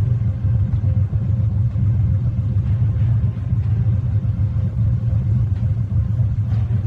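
Car engine running at a steady idle, a deep even rumble with no revving.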